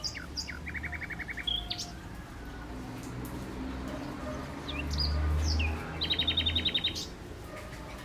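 Songbirds singing: two phrases of quick high whistled notes, each ending in a rapid trill of about eight to ten repeated notes, the first about a second in and the second around six seconds in. A low rumble runs underneath and swells around five seconds.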